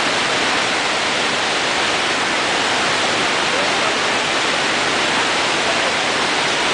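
Steady rush of whitewater pouring over a river ledge into the pool below.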